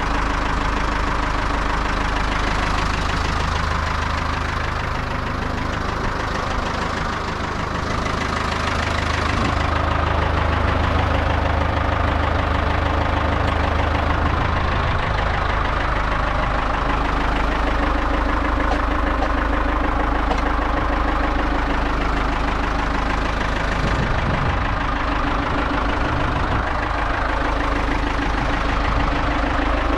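Ford 5000 tractor engine running at a steady idle.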